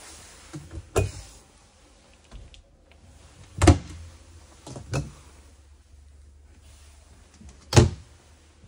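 Small wooden cabinet door under a bathroom sink opened and shut by hand, giving four sharp knocks and clunks; the loudest come a little under four seconds in and again near the end. A soft hiss runs through the first couple of seconds.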